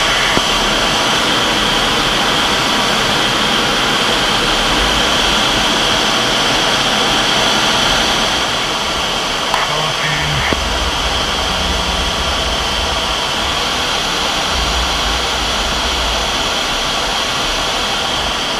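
Steady noise of a MiG-29's twin Klimov RD-33 turbofans and the rushing airflow in high-altitude flight: an even hiss with a high whine running through it, unchanging, with a couple of faint clicks about halfway through.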